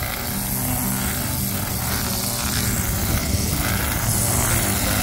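Brush cutter's small petrol engine running steadily at working speed, a little louder after about three seconds, as its nylon trimmer line cuts long grass.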